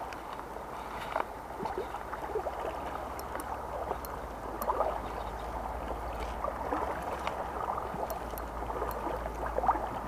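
Shallow river running and gurgling over a stony bed, steady throughout, with a few faint clicks.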